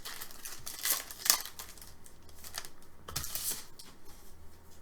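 Trading cards and plastic being handled at close range: short rustles and clicks, loudest about a second in and again after three seconds.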